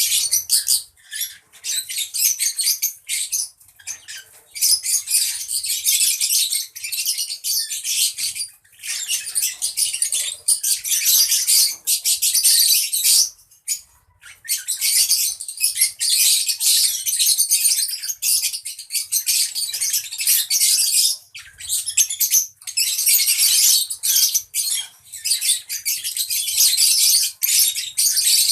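A group of lovebirds chattering in rapid, high-pitched calls, in bouts of a few seconds broken by short pauses.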